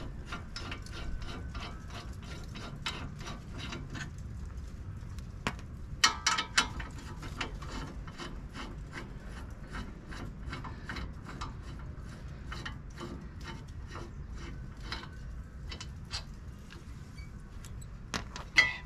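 A ratchet clicking steadily at a few clicks a second as the front brake caliper bracket bolts are wound out, with a short burst of louder metal clinks about six seconds in.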